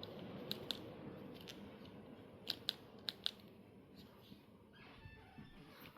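Home Decorators Collection 52-inch ceiling fan running, a steady rushing noise that gradually gets quieter, with a string of sharp clicks in the first three and a half seconds.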